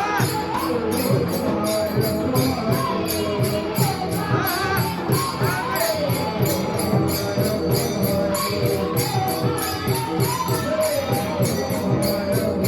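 Marathi devotional kirtan music: voices singing a bhajan over a mridang drum and small hand cymbals, the cymbals clashing in a steady beat of about three to four strokes a second.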